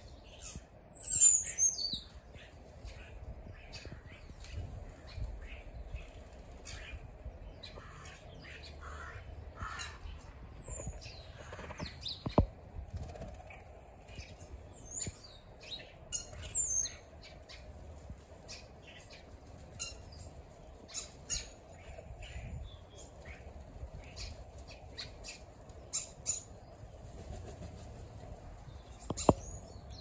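A flock of starlings and crows calling: scattered squawks and chirps with high whistles that slide down in pitch, and now and then wings flapping. Two sharp clicks stand out, one near the middle and one near the end.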